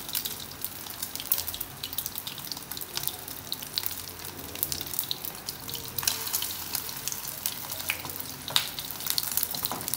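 Vegetarian chả patties, coated in beaten egg, frying in hot oil in a pan: a steady sizzle full of quick crackles and pops.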